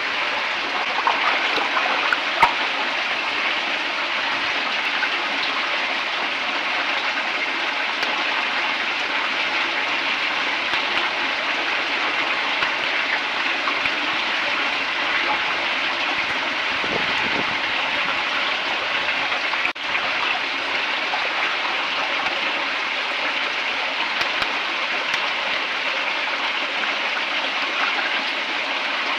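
Water rushing steadily through a culvert pipe, a constant even wash of flowing water, with a couple of sharp clicks about two seconds in.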